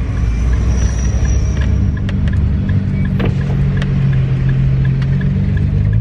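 Nissan GT-R engine running at low revs, heard from inside the cabin as a steady low hum whose pitch shifts a couple of times midway. A faint regular ticking, about two to three a second, runs under it.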